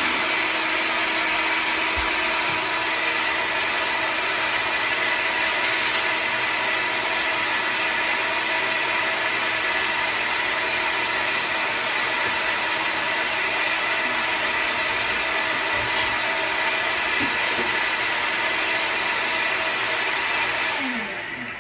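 Personal bullet-style blender motor running steadily while blending a smoothie with frozen banana and ice. It switches off near the end and winds down with a falling whine.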